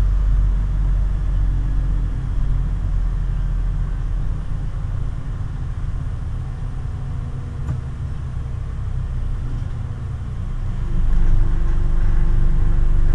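Cabin sound of a Scania CN280UB city bus on the move: a steady low rumble from its 9.3-litre, 280 hp Scania DC9 diesel and the running gear. It eases off through the middle and grows louder again near the end, with a steady whine on top.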